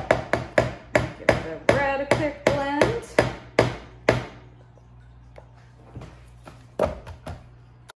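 Stick blender worked in a plastic pitcher of orange cold process soap batter: a rapid run of knocks against the pitcher, about three a second, with the motor whine rising and falling in the middle. It stops about four seconds in, and a few lighter knocks follow near the end.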